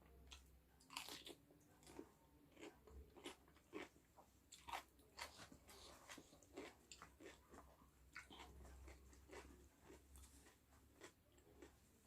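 Quiet, close crunching and chewing of crispy fried chicken (ayam geprek) in a mukbang, with irregular crackly bites and chews throughout.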